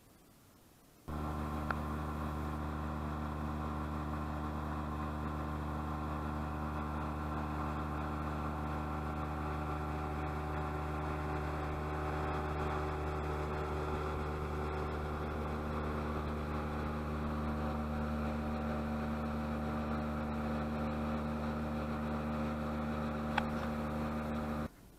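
Speedboat engine running at a steady drone under way, starting abruptly about a second in and stopping abruptly near the end.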